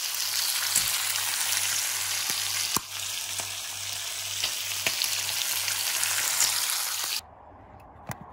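Food frying in a pan: a steady sizzle with scattered sharp pops, which stops abruptly about seven seconds in.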